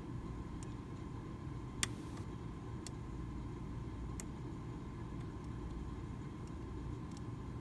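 A few sharp, isolated metal clicks of a lock pick working the pins of a six-pin Medeco original mortise cylinder, the loudest about two seconds in, over a steady low hum.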